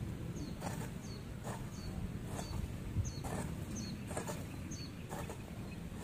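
Garden hoe chopping into weedy ground, a short strike about once a second, while small birds chirp.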